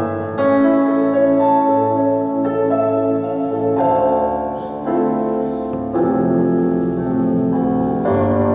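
Yamaha electronic keyboard played with a piano voice: sustained chords, a new one struck about once a second, with no singing.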